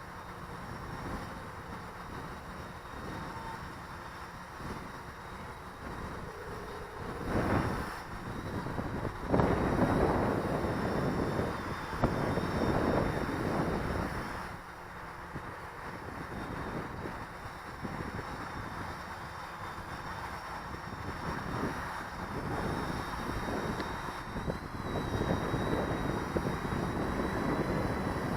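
Quadcopter's electric motors and propellers running with a faint steady high whine, under heavy wind buffeting on the microphone that swells in several strong gusts.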